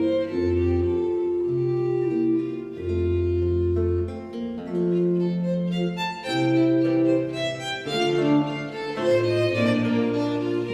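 Background music: bowed string instruments, a violin-like melody over cello or bass notes, playing sustained notes that change about every second.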